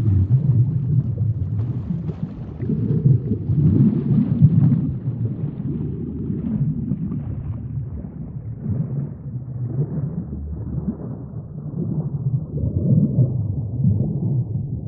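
Sea ambience: a low, muffled rumble of moving water that swells and eases every few seconds, growing duller toward the end.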